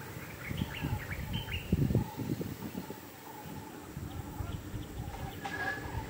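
Birds chirping in short calls, a cluster in the first second and a half and more about five seconds in, over an uneven low rumble.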